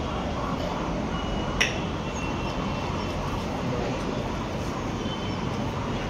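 Steady background noise with one sharp click about one and a half seconds in.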